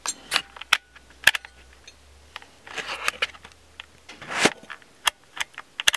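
Handling noise of a camera being moved and repositioned in the dark under the car: scattered clicks and knocks with a couple of short rustling swishes.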